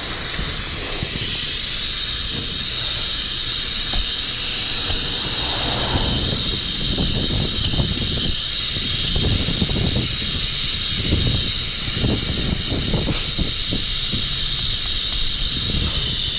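Air hissing steadily out of a motorcycle rear tire's valve as the tire is let down, with irregular low knocks and rustling of handling underneath.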